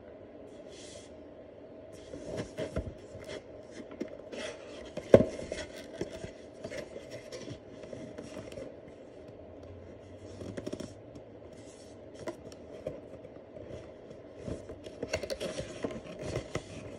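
Cardboard packaging being opened and handled: irregular scraping, rubbing and tapping of cardboard, with one louder knock about five seconds in.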